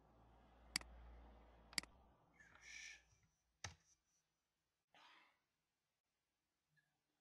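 Three sharp computer mouse clicks in the first four seconds, each a second or two apart, with soft breathing in between.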